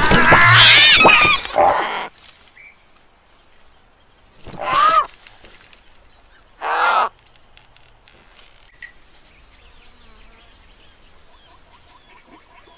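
Cartoon vultures squawking and screeching loudly for about two seconds, then two single hoarse caws about two seconds apart. After that only faint outdoor ambience, with light repeated chirping near the end.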